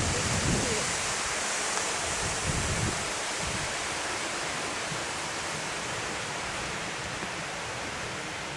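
Steady rushing outdoor noise, with low rumbles in the first three seconds that then die away.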